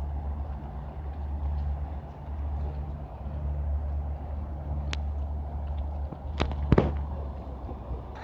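Low, steady engine drone of a large river tour boat passing close by. A few sharp clicks come a little past the middle.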